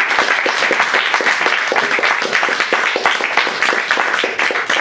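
Small audience applauding steadily, a dense patter of many pairs of hands clapping.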